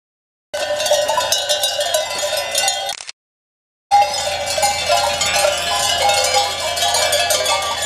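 Many bells worn by a passing flock of sheep clanging and jangling together, a dense, continuous clatter of ringing bells, broken by a brief dead silence about three seconds in.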